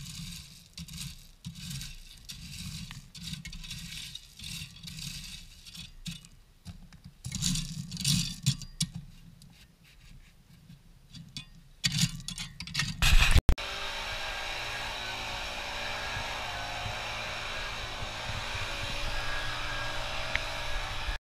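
Gravel being raked and spread by hand, irregular crunching and scraping strokes. About two-thirds of the way through it cuts to a leaf blower running steadily.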